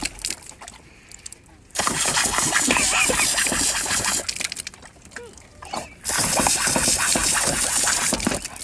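Water spraying from a hose in two loud bursts of a couple of seconds each, with quieter spattering between them.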